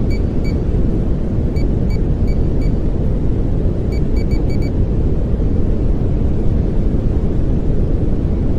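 Steady pink noise: a constant, even hiss heavier in the low end, with no change in level. A few faint, short, high blips sound in the first half.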